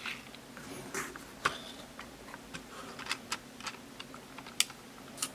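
Irregular light clicks and taps, about a dozen, of small hard objects being handled, with sharper ones about one and a half seconds and four and a half seconds in.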